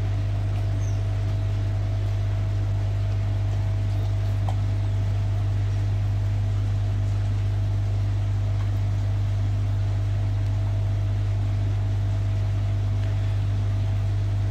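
Steady low electric hum of running koi pond equipment, with a faint thin steady tone above it and no change throughout.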